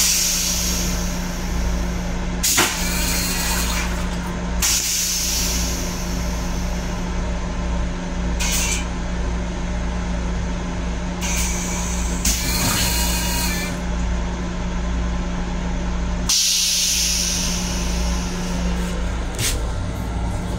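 Steady hum and low rumble of an M7 electric railcar heard inside its small restroom, broken by several short hisses of air and a few light clicks.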